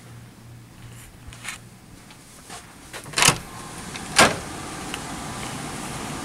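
A door opening and swinging shut, two loud clunks about a second apart. Then a steady rush of ventilation air, the fume hoods of a chemistry lab, comes in.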